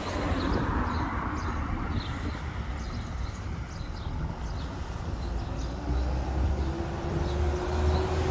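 Steady low outdoor rumble, with an engine note that rises slightly in pitch and grows louder over the last two seconds as it approaches.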